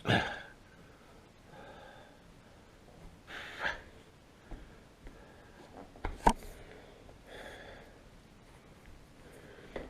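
A person's sharp, snort-like exhalations and breaths. The loudest comes right at the start, another about three and a half seconds in, with two short clicks around six seconds.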